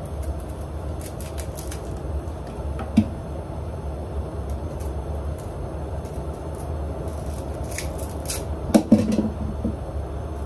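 Garlic cloves being peeled by hand in the kitchen: scattered light crackling ticks of papery skins and a knife, a single knock about three seconds in and a few louder knocks near the end, over a steady low hum.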